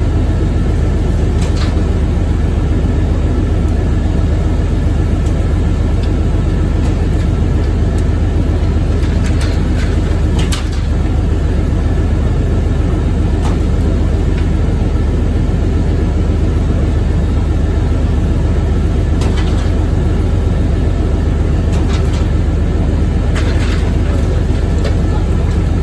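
Boat engine running steadily, a loud constant low drone, with a few brief clicks or knocks over it.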